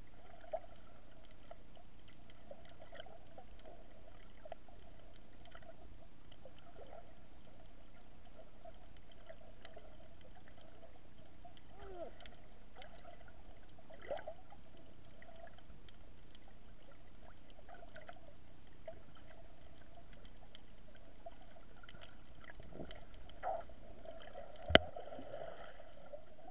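Underwater ambience picked up by a submerged camera: a steady, dull hiss with scattered faint clicks, and one sharp knock near the end.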